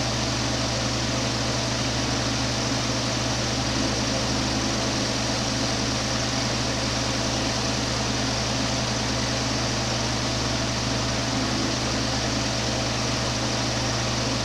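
Oxygen-fuel glassworking torch burning with a steady hiss, with a low steady hum underneath.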